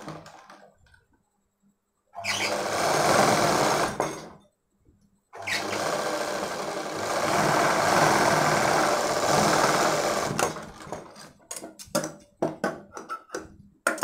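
Sewing machine stitching in two runs: a short burst about two seconds in, then a longer steady run of about five seconds. Near the end come a series of short sharp clicks and snips as the thread is trimmed with scissors.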